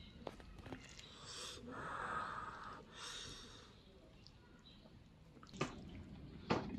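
A person eating hot rice noodles: a long breathy slurp of air and noodles about a second and a half in, then a shorter one. Chopsticks click sharply against the earthenware pot near the end.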